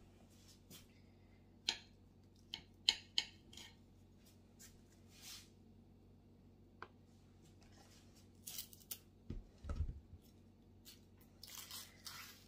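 Faint scattered clicks, taps and brief crinkly rustles of hands and a silicone spatula working banana halves into a disposable aluminium foil pan, with a soft low thump near the end.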